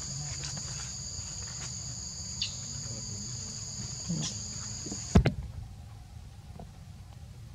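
Insects shrilling steadily in two high, level tones over a low rumble. The shrill cuts off abruptly with a sharp click about five seconds in, leaving a quieter background.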